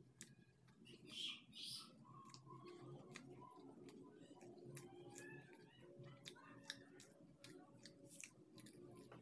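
Quiet close-up chewing of a mouthful of food, with many small wet mouth clicks and smacks and a short hiss about a second in. A faint steady hum runs underneath.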